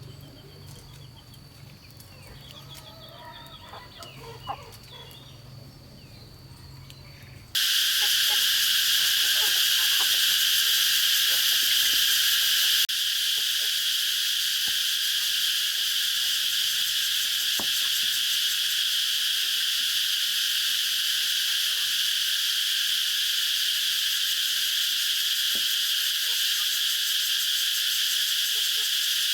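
Loud, steady, dense insect chorus that starts abruptly about seven seconds in and holds at an even level. Before it there is only a faint low hum with a thin high steady tone and a few soft chirps.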